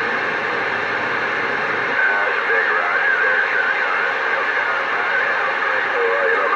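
CB radio receiver hiss: band static that comes on suddenly as the transmitter is unkeyed. From about two seconds in, faint warbling, garbled voices of distant sideband stations come through the noise. The operator describes band conditions as poor.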